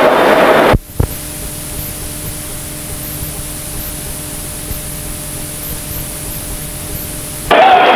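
The recorded sound cuts off with a click about a second in, leaving the steady hiss of blank videotape with a faint hum underneath. The loud recorded sound comes back suddenly near the end.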